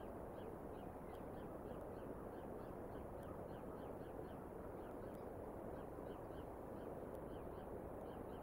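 Steady outdoor hiss of wet weather, with a small bird chirping over and over in the background, a couple of short high chirps a second.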